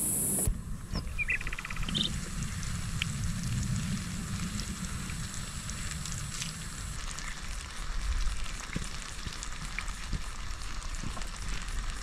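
Vegetables and melted cheese sizzling in a frying pan on a portable gas stove, a steady hiss with many small irregular crackles.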